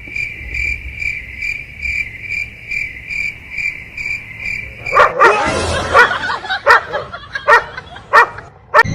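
A high, even beeping tone pulsing about two to three times a second for the first five seconds, then a dog barking and yipping several times.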